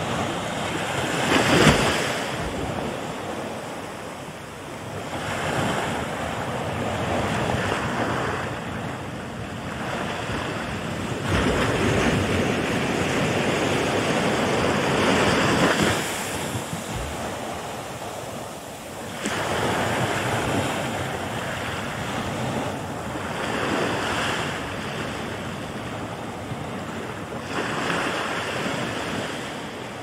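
Ocean surf: waves breaking and washing ashore in repeated swells that rise and fall every few seconds, the sharpest surge about two seconds in.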